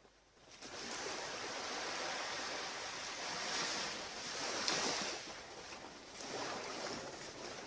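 Ocean surf washing onto a beach, swelling loudest about four to five seconds in and again shortly before the end.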